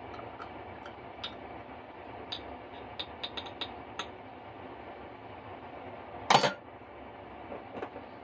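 Metal spoon stirring in a small glass jar of liquid, clinking lightly against the glass several times, then one much louder, short clatter about six seconds in.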